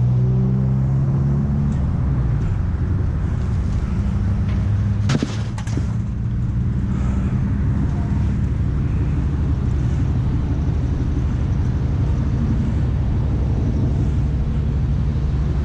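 Truck engine running steadily, with two sharp knocks about five seconds in.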